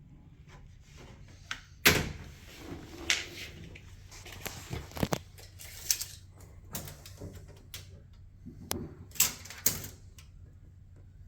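Irregular knocks, clicks and clunks of oak cabinet doors and their metal hardware being handled and fitted, the loudest knock about two seconds in.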